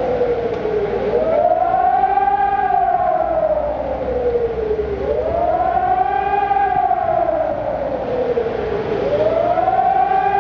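Hörmann ECN 2400 electronic civil-defence siren sounding a wailing warning tone in a public siren test. Its pitch sweeps up quickly and falls back more slowly, about once every four seconds, with other sirens sounding in the background.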